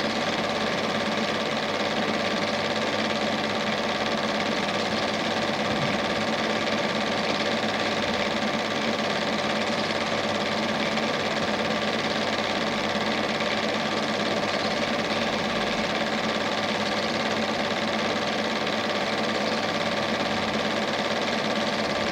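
Standard 8 cine projector running steadily with an even mechanical whirr and fixed hum tones, heard under the transferred silent film rather than any sound from the scene.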